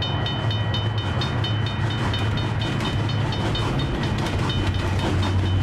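Karakoram Express passenger train passing at speed: wheels clicking over the rail joints in a rapid, even rhythm of several clicks a second over a steady low rumble, with a faint steady high ringing tone.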